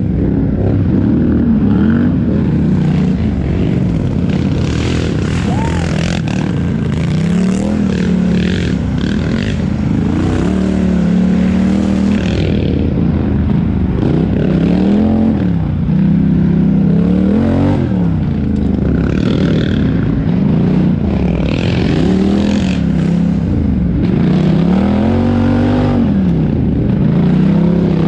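A 4x4 race ATV's engine, heard from an onboard camera, revving up and dropping back again and again as the rider accelerates and backs off through the course.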